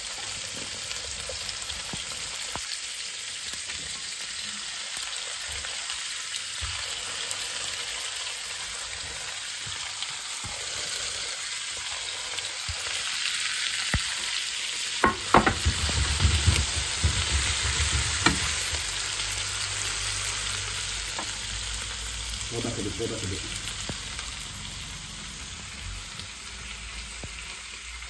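Sliced vegetables (onion, pumpkin, okra and tomato) sizzling in hot oil in a frying pan as they are stirred: a steady hiss that swells about halfway through and eases toward the end. A few sharp clicks and knocks come in the middle.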